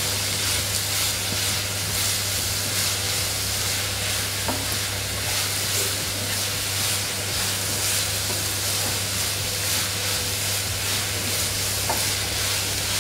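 Grated carrots sizzling steadily in ghee in a nonstick wok over a high flame, while a wooden spatula stirs them, with a few faint scrapes and taps against the pan.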